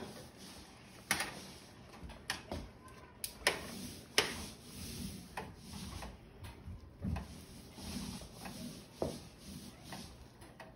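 Metal kitchen tongs clicking and knocking against a stainless steel stockpot as cooked ramen noodles are lifted out of their water. About eight separate sharp clicks, the loudest in the first half, with soft handling sounds between.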